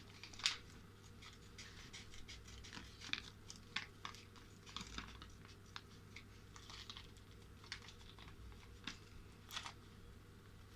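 Small homemade minifigure bag being torn open and crinkled by hand: scattered faint crinkles and crackles with light clicks.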